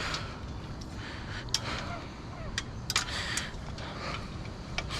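Steady low rumble with a few sharp clicks and knocks scattered through it, typical of scrap metal being handled and moved.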